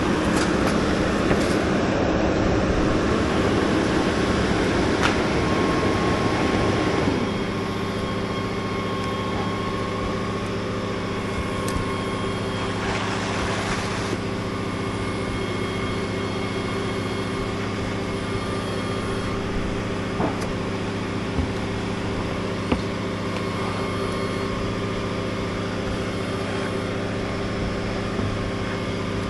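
Boom truck engine running steadily, revved up at first, then dropping to a lower, quieter speed about seven seconds in. A few faint sharp taps sound over it.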